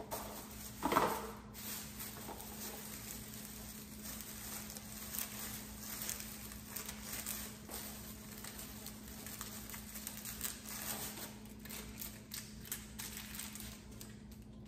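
Plastic shopping bag rustling and crinkling as a hand digs through it, with a steady low hum underneath.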